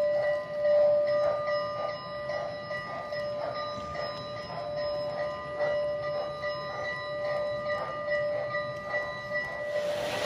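O-gauge model passenger train of Southern Pacific Daylight cars rolling past on the track, with a steady high whine and a regular clicking as the wheels run on. Right at the end a louder rushing noise comes in.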